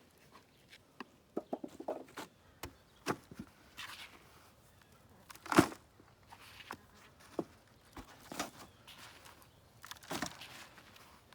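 Hands digging and rummaging through loose potting soil in a container while harvesting potatoes, making irregular rustles and scrapes, with one sharper knock about five and a half seconds in.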